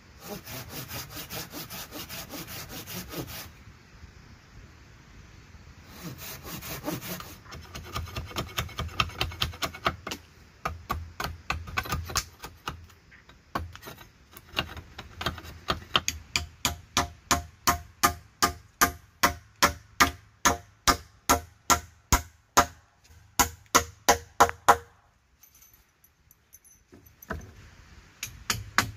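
A hand pruning saw cutting into the trunk of a small green tree. It goes in quick spells of back-and-forth strokes, then settles into steady strokes about two a second that stop a few seconds before the end.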